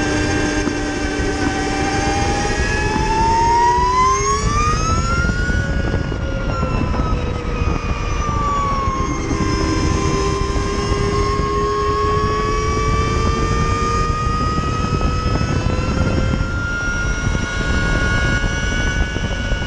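Energica Ego electric motorcycle's motor whining under way, over heavy wind rush. The whine climbs in pitch for the first five seconds or so as the bike accelerates, drops as it slows, then rises gradually again.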